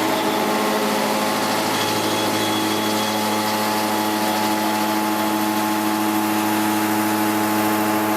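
Milling spindle on a Kinetic K4000 CNC table running steadily while it mills a part. It makes a constant, even machine hum.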